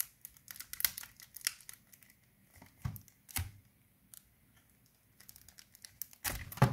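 A knife blade scraping and cutting through the shrink-wrap on a sealed CD jewel case: a run of short plastic crackles and scratches, with a louder crackle near the end.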